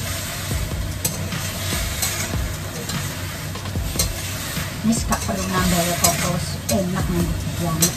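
Vegetables stir-frying in a hot pan with a steady sizzle, while a utensil scrapes and knocks against the pan every so often.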